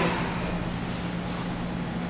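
Steady background hum and hiss, with a constant low tone under an even noise.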